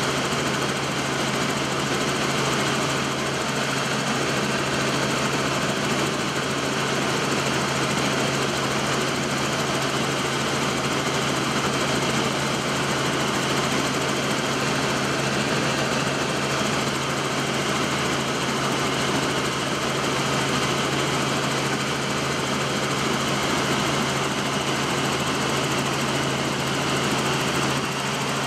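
Helicopter engine and rotor running steadily in flight, heard from inside the cabin as an even, unbroken drone with a low hum.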